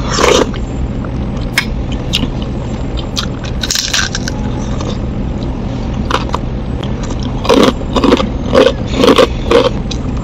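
A person eating close to the microphone, chewing with mouth sounds, a few single bites early on and a quick run of louder bites and chews in the last few seconds. A steady low hum runs underneath.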